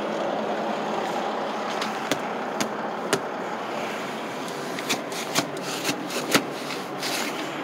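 Steady vehicle noise with no clear pitch, broken by a few scattered sharp clicks and taps.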